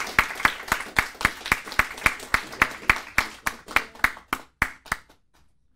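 A few people clapping in a steady rhythm, about four claps a second, stopping about five seconds in.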